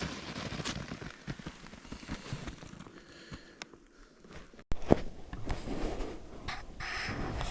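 Irregular crackling and rustling of footsteps moving through brush on the forest floor. The sound drops out abruptly a little over halfway through and then resumes louder.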